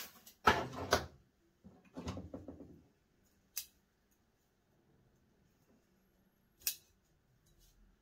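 Handling noises of a metal bonsai tool working among a white spruce's branches: rustling scrapes in the first three seconds, the loudest at the start, then two short sharp clicks, a little past halfway and near the end.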